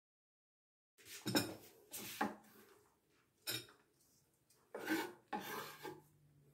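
A chef's knife and hands scraping shredded cabbage across a wooden cutting board and knocking it into a glass bowl: a series of short scrapes and knocks, starting about a second in.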